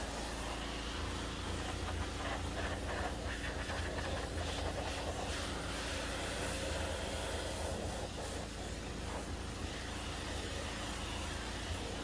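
A 4 gpm pressure washer runs steadily with a low hum, its high-pressure water jet hissing against the body and tracks of a compact track loader. The hiss shifts a little as the spray moves over different parts of the machine.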